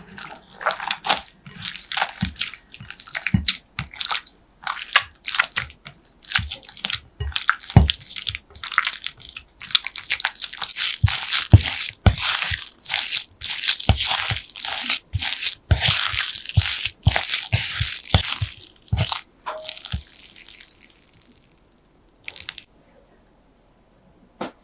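Silicone spatula mashing and stirring torn frozen puff pastry with salad oil and water into a dough in a glass bowl: repeated scraping strokes, spaced out at first, then quick and almost continuous, stopping about two seconds before the end.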